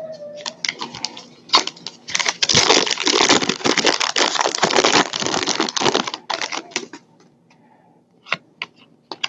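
Trading card packs being opened and handled: foil wrappers crinkling and tearing, and cards clicking and flicking against each other, with a dense stretch of crackling in the middle and scattered clicks near the end.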